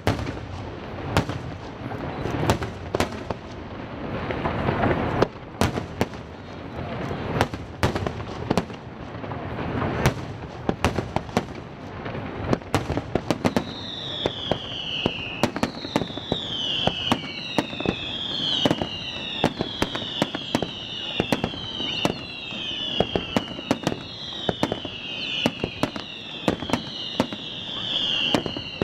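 Aerial fireworks display: a rapid, uneven string of sharp shell bangs. From about halfway through, a run of whistles each falling in pitch joins in, about one a second.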